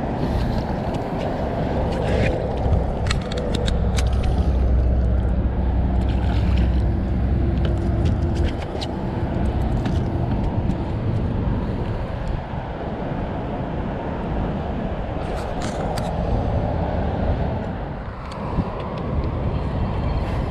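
Boat motor running steadily with a low rumble, heaviest for a few seconds before easing about eight seconds in, with a few sharp clicks or knocks scattered through.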